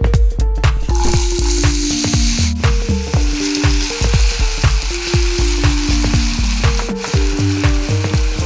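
Diced potatoes sizzling as they fry in hot oil in a pan, the sizzle starting about a second in. Background music with a steady beat plays throughout.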